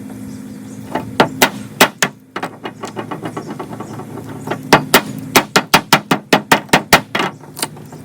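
A series of sharp knocks and taps: a few scattered strikes, then a quick run of about three a second in the second half, over a steady low hum.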